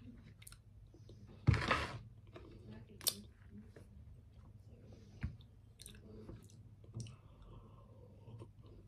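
Close-up chewing and mouth sounds of a person eating, with scattered light clicks of cutlery and dishes and one louder crunchy rustle about a second and a half in.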